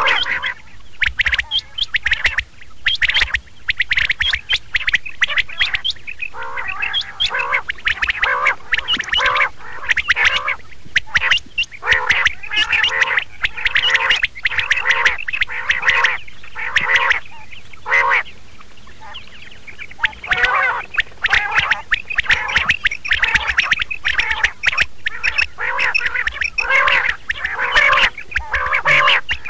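Quail calling in a dense, rapid run of short repeated calls, with a brief lull about two-thirds of the way through.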